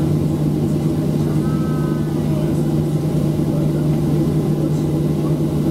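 Cabin noise of a Boeing 737-700 on the ground, its CFM56-7B turbofans running at idle: a steady hum with a strong low drone, heard from inside the cabin.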